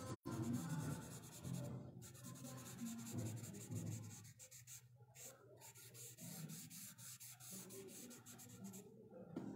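Charcoal pencil scratching on sketchbook paper in rapid back-and-forth strokes, shading in a dark area of hair. The strokes stop near the end.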